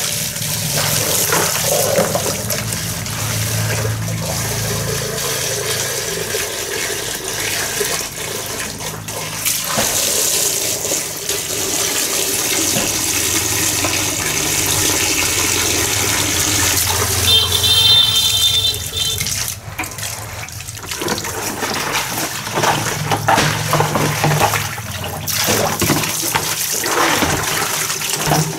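Water running from a hose and splashing steadily into plastic basins and a pot on a concrete floor.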